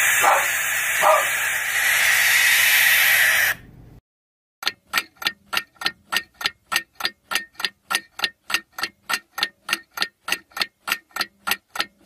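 A steady train-like rushing sound effect cuts off about three and a half seconds in. After a short gap, the stopwatch on a time bomb ticks, sharp and evenly spaced at about three ticks a second, counting down.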